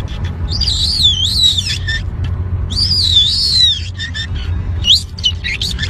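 A parrot calling: two long wavering whistles, then a few short rising squeaks near the end, over a steady low rumble.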